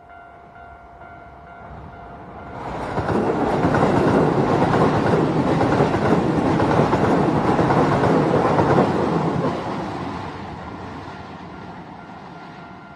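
A Keisei electric train passing over a level crossing: wheel and rail noise comes up sharply about two and a half seconds in, stays loud for about seven seconds, then fades away. The crossing's warning bell rings over and over throughout, drowned out while the train is closest.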